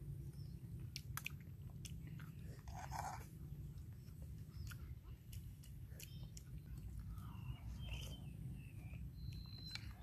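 A person chewing mouthfuls of rice porridge with blood cockles, with scattered sharp clicks from a metal spoon against the bowl.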